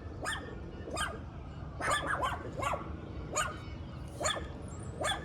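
A dog barking repeatedly, about eight short barks at uneven intervals of roughly half a second to a second.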